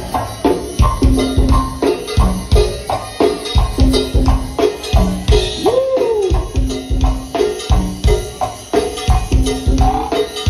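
Go-go band playing live: a steady, driving drum beat with hand percussion and pitched drum notes, and a single note that slides up and back down about halfway through.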